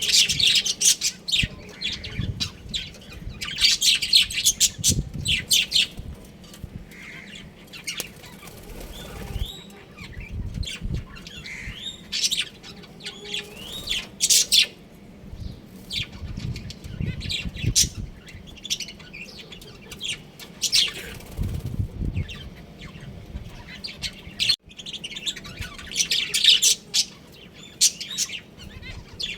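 A flock of budgerigars chirping and chattering in bursts of quick, high twitters, with wing flapping and low thumps of movement among the birds.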